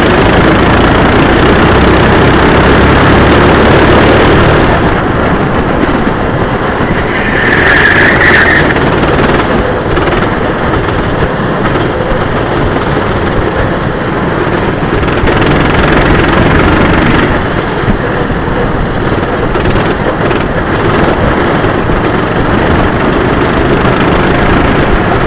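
Onboard sound of a SODI RT8 racing kart at speed: its engine running hard under the rushing noise of wind and the kart on the camera's microphone, loud and continuous, with abrupt shifts in level about five seconds in and again later where the footage is cut.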